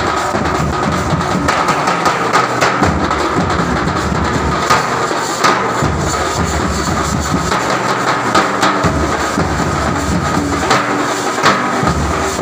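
A troupe of large steel-shelled drums with white heads beaten with sticks, a dense, continuous, fast rhythm of many drums together.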